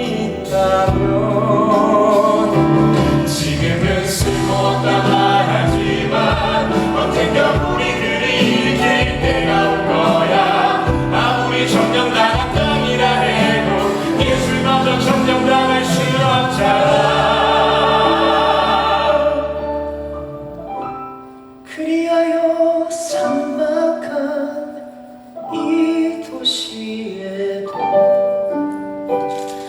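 Musical theatre cast singing together over live show accompaniment during a curtain call. The music is full and loud, then drops about two-thirds of the way through to a quieter passage of held notes.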